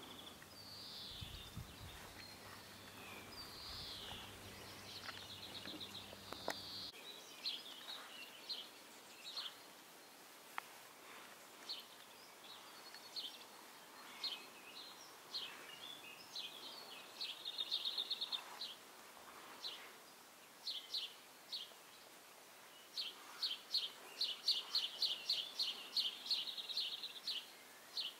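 Small songbirds chirping in short high notes. A quick trill comes just past halfway, and near the end there is a long run of rapid repeated notes, the loudest part.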